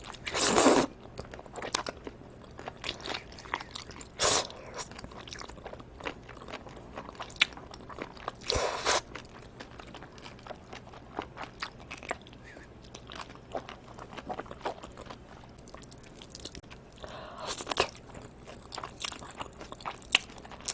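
Close-miked eating of live octopus and cold bibim noodles: chewing and biting with many small wet clicks, and a few louder bursts about half a second long, one near the start, others around four and eight seconds in and one near the end.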